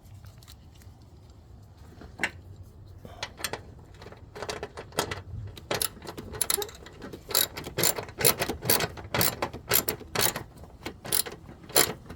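Hand socket ratchet clicking in repeated back-strokes as it tightens a bolt on the car battery's negative cable. A few scattered clicks come first, then a steady run of quick clicks from a few seconds in.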